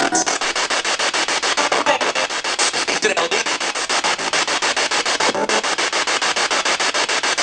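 Spirit box sweeping the radio band: loud static chopped into even pulses about seven or eight times a second, with a few brief snatches of broadcast sound breaking through.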